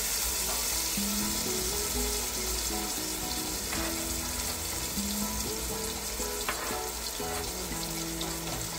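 Onions with cumin and chillies frying in oil in an open pressure cooker, a steady sizzling hiss, with a few faint ladle clicks. Quiet background music plays over it.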